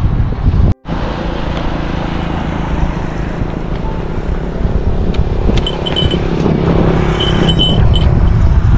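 Roadside traffic noise: a motor vehicle engine running close by with a steady hum, the sound cutting out briefly about a second in.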